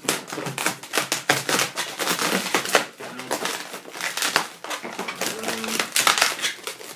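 Inflated latex modelling balloons (260s) rubbing and squeaking against each other and against hands as they are twisted, pushed and moved into place. Irregular scratchy rubbing throughout, with a couple of short squeaks about three seconds in and again near five and a half seconds.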